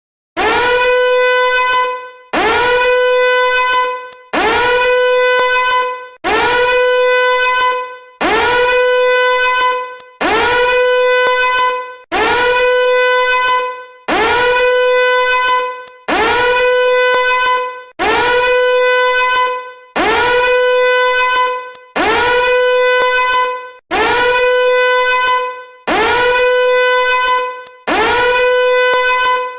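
A looped novelty alarm sound: a buzzy, horn-like blast that scoops up in pitch to one held note, about a second and a half long. It repeats every two seconds, about fifteen times.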